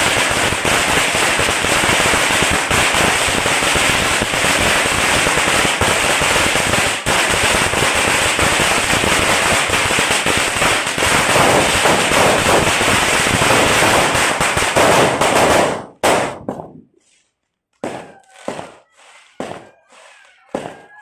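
A long string of firecrackers, a 'Mercun Long 4000', going off in a dense, continuous rapid-fire crackle that cuts off abruptly about sixteen seconds in. A few short separate sounds follow near the end.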